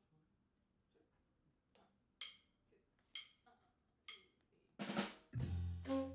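Jazz drum kit opening the tune with a few sparse snare and cymbal hits, each ringing briefly. About five seconds in, the organ trio comes in, with low organ bass notes under the drums.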